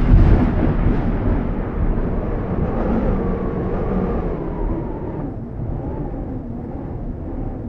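Deep rumbling roar of a fire sound effect, opening with a loud boom and slowly dying away.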